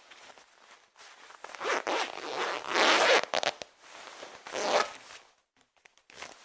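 A jacket being put on: rustling, swishing fabric in several strokes, loudest about three seconds in, with one more swish near five seconds and a few small clicks after it.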